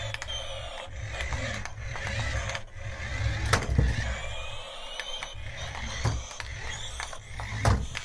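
Toy remote-control plane driving across a tabletop: its small electric motor and plastic gears whir and click steadily. Two louder sharp knocks, one around the middle and one near the end.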